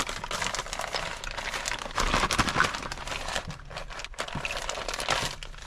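Crinkly packaging being opened and handled, a run of irregular rustling and crinkling that is loudest about two seconds in.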